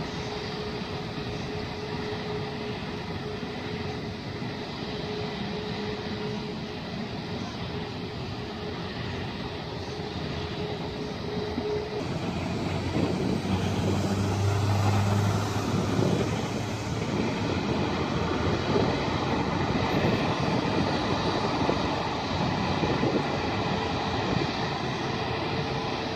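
Jet engines of a British Airways Airbus A380, four Rolls-Royce Trent 900s, at taxi power: a steady rushing noise with a steady whine. It grows louder about halfway through, with a low rumble.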